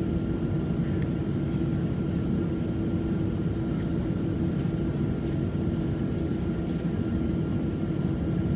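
Cabin noise of a Boeing 737-700 with its CFM56 jet engines running steadily at low power, a constant hum with a steady low tone and a faint high whine.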